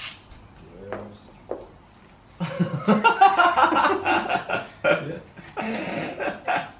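People laughing and chuckling, starting about two and a half seconds in after a few short, quiet sounds.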